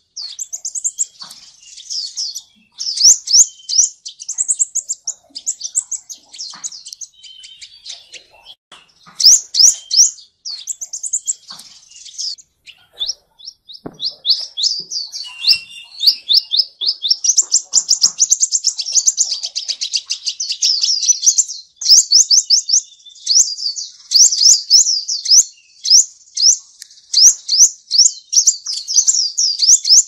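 Sunbird song: quick series of very high, thin sweeping notes strung into trills. They come in bursts of one to a few seconds with short gaps, then run almost unbroken through the second half.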